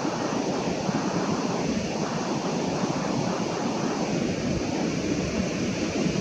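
Storm-force wind blowing over the microphone with breaking sea surf beneath it: a steady rushing noise with no let-up.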